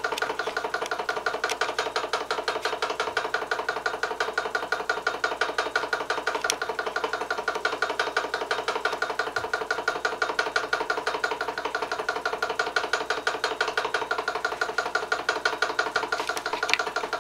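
Small Louis Heinrici hot air (Stirling) engine running steadily, with a rapid, even mechanical beat from its pistons and linkage and a steady tone running through it.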